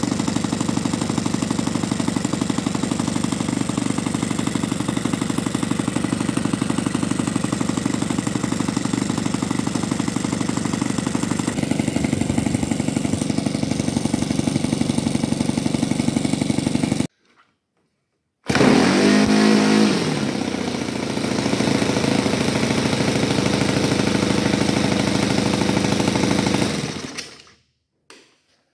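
Saito FG-21 four-stroke gas engine on a model airplane running steadily with its propeller turning, during the new engine's first break-in run. After a short gap it runs again, its pitch dropping for a moment before settling, and fades out near the end.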